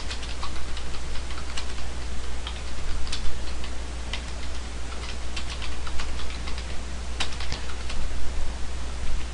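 Typing on a computer keyboard: quick, irregular key clicks as a line of text is typed, over a steady low hum.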